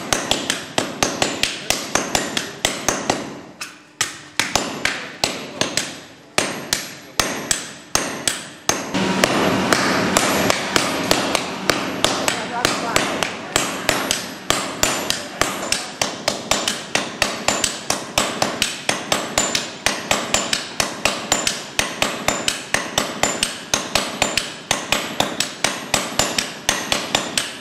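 Three or four sledgehammers striking red-hot iron on an anvil in rapid rotation, hand-forging as a team to draw out the iron. The sound is a steady run of sharp metallic blows, about three a second, with a couple of brief pauses and a denser, noisier stretch about nine seconds in.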